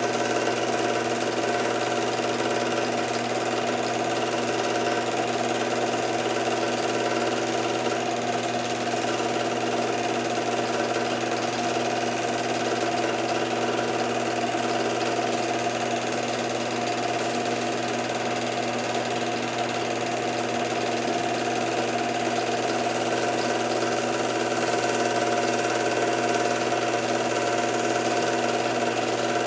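Film projector running with a steady mechanical whir and hum, unchanging throughout.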